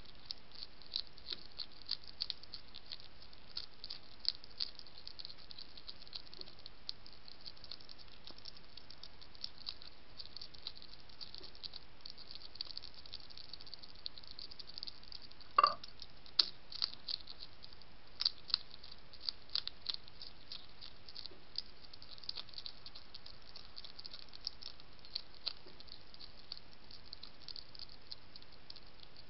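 Wild European hedgehog crunching dry food from a dish: irregular crisp clicks of chewing over a steady hiss, with one louder knock about halfway through.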